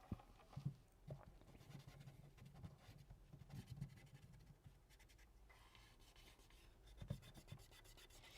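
Faint scratching and rubbing on small phone parts as they are wiped and scraped clean, with a few soft knocks.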